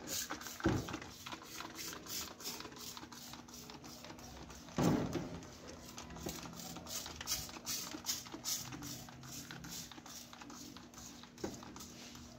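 Hand trigger spray bottle being pumped repeatedly: a fast series of short spray hisses, about three a second, with one louder thud near the middle.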